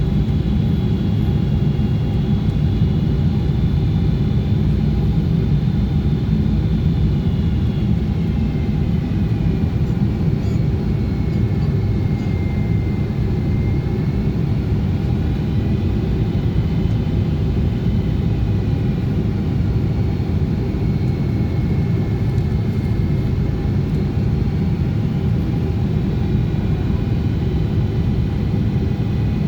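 Boeing 777-200ER cabin noise in flight during the descent before landing: a steady, loud rumble of engines and airflow, with faint high whining tones that slowly drift up and down in pitch.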